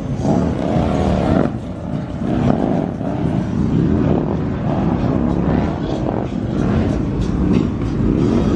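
A car engine revving hard again and again, its pitch rising and falling in repeated swells, over background crowd and street noise.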